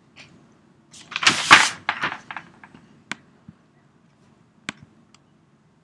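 A short rush of noise about a second in, then a few sharp single clicks of a computer mouse, spaced apart.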